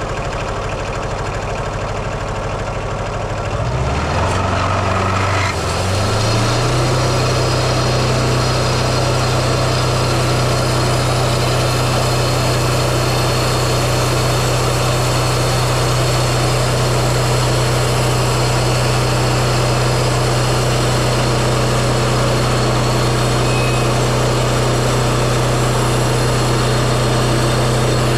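Wood-Mizer LT15 sawmill's Kohler 17 hp diesel engine running steadily, then throttled up between about four and six seconds in and holding steady at higher speed, louder, with a dense rushing noise over it.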